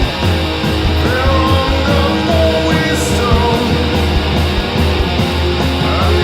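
Doom metal music: sustained distorted electric guitars over a heavy, steady low end.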